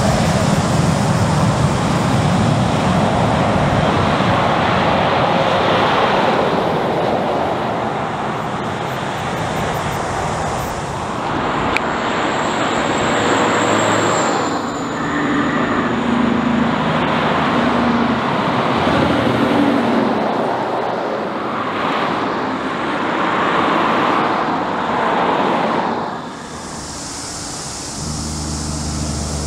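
Highway traffic passing one vehicle after another: trucks and cars, with tyre and engine noise swelling and fading as each goes by. Near the end the road noise drops and the low steady engine of an approaching heavy truck comes in.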